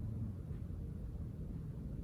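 A cat snoring, a low rough rumble with a faint low tone about a second in.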